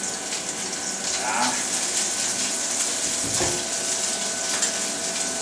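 Meat sizzling steadily in a frying pan on a gas burner, with fine crackling in the hiss and a dull knock about three seconds in as the pan is handled.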